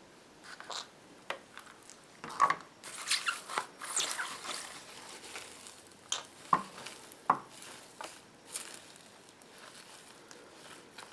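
Water poured from a plastic bottle into a clear plastic tub of dry sphagnum moss, a short splashy hiss about three seconds in, then the wet moss squished and kneaded by hand, with light clicks and knocks of the plastic tub.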